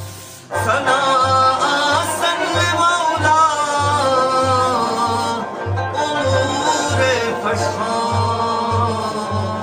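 Devotional ginan music: a rubab and a singing voice carry a gliding melody over a steady frame-drum beat about twice a second, getting louder about half a second in.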